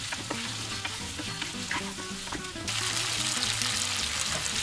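Beef pieces frying in coconut oil in a non-stick pan, sizzling steadily, with light spatula scrapes against the pan in the first half. The sizzle grows suddenly louder a little past halfway.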